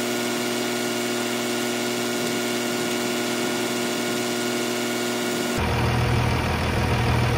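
Chevrolet Impala's starter motor whining steadily without any cranking rhythm: the engine, thought to be locked up, does not turn over, and the starter is overheating. The whine cuts off suddenly about five and a half seconds in, and a louder low rumble follows.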